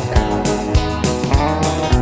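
Instrumental rock music: a melodic electric guitar over a steady drum beat of a little under two beats a second.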